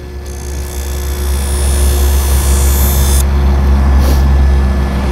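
Six-inch bench buffer's motor running steadily, with a high hiss from just after the start until about three seconds in as a knife edge is drawn across its spinning leather strop wheel.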